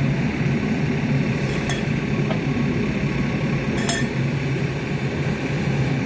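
Excavator diesel engine idling steadily, with three sharp metallic clinks, the last the loudest, as a steel bar knocks at the bucket linkage pin while the bucket is being detached.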